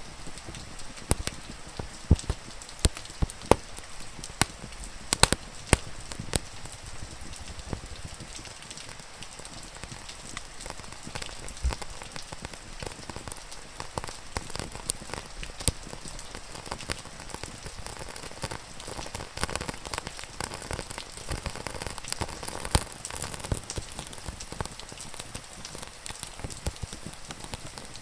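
Steady rain hiss with a wood fire crackling over it, sharp pops that come thick in the first several seconds and more sparsely after.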